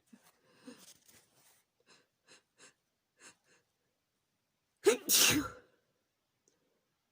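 A person sneezing from chhikni sneezing powder: a run of short, faint catching breaths about every half second, then one loud sneeze about five seconds in, a sharp catch followed by a longer blast.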